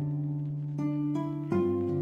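Background music: plucked-string notes over a held low note, with new notes starting near the middle and again about three-quarters of the way through.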